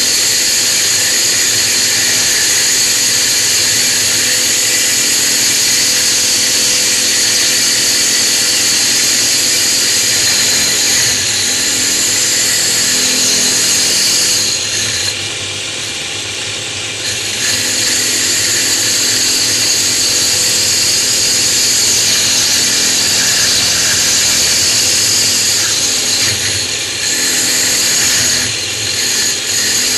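Drill press running a 1 3/8 inch hole saw bit as a milling cutter, grinding down the face of a wet natural stone tile in a steady high-pitched grinding. The level drops briefly about halfway through and again twice near the end.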